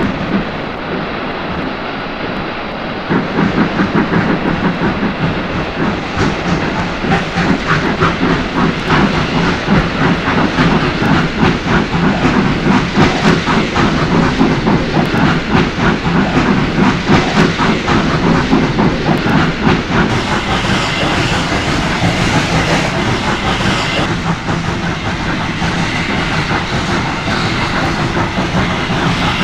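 Steam locomotive working hard on a climb: a continuous run of quick, even exhaust beats with steam hiss and rail clatter, getting louder about three seconds in.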